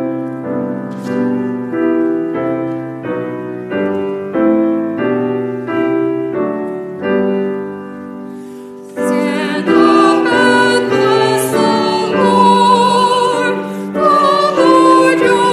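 Falcone grand piano playing a chordal hymn introduction, one chord after another; about nine seconds in, a small group of voices joins in singing with the piano.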